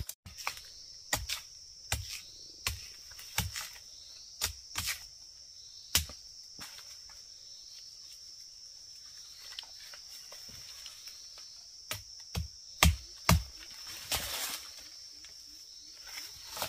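Steady high-pitched drone of forest insects, with irregular sharp knocks and clicks over it. The knocks come in a quick run in the first five seconds, once at about six seconds, and again in a louder cluster near the end.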